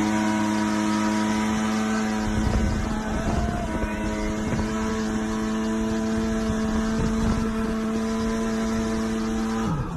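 Motorboat engine running at a steady high speed, one unchanging droning pitch, with wind and water rushing in from about two seconds in. It cuts off suddenly just before the end.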